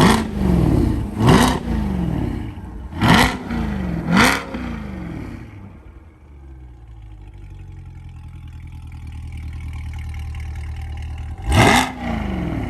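C8 Corvette V8 revved through high-flow sport catalytic converters: four quick throttle blips in the first few seconds, each climbing and dropping straight back, then a steady idle for several seconds before another sharp rev near the end.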